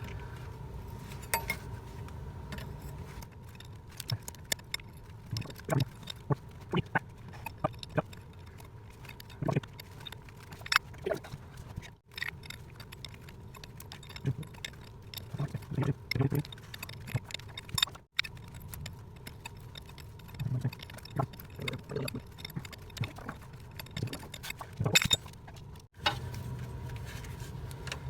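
Scattered light metallic clinks and knocks of hand tools and hose fittings being worked on in a cramped engine compartment, over a low steady hum.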